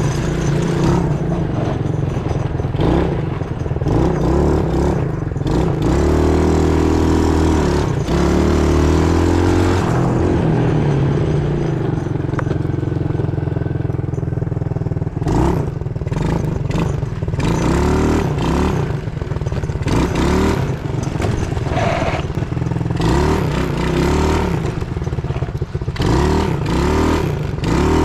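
Quad bike (ATV) engine running and revving up and down as it rides over cobbled lanes. From about halfway through, frequent knocks and rattles from the bumps join the engine.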